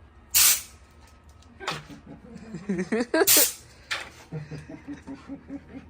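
Two short, loud blasts of compressed air from an air-compressor hose, about three seconds apart. Between and after them a German Shepherd dog whines in short, wavering cries.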